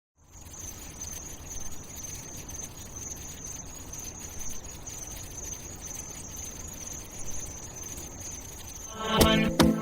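Steady high-pitched insect chirring over a low ambient rumble. About nine seconds in, a pop track with a beat comes in over it.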